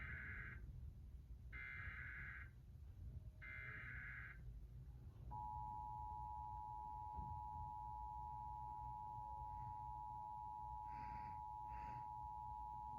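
Emergency Alert System test: three short bursts of SAME digital header tones, each about a second long, then the EAS two-tone attention signal (853 and 960 Hz) starting about five seconds in and held steady for about eight seconds.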